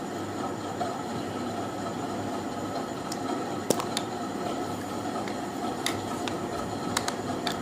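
A handful of sharp plastic clicks and taps as the SJCAM SJ4000's clear waterproof housing is unlatched and opened and the camera handled, over a steady background hum.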